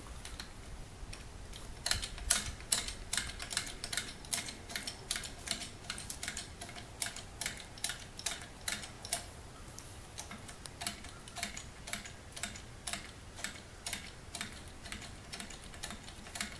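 An 8-ton hydraulic bottle jack on a tractor-mounted hoist being pumped by hand to raise the boom, making a steady run of sharp clicks, about two or three a second, that starts about two seconds in.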